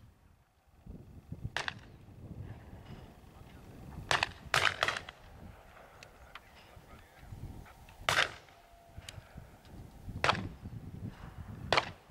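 Shotguns firing from a line of grouse butts: about seven sharp shots at uneven intervals, three of them in quick succession about four seconds in.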